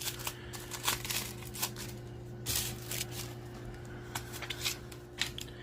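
Trading cards and their pack being handled: scattered soft rustles and flicks as the cards are shuffled through.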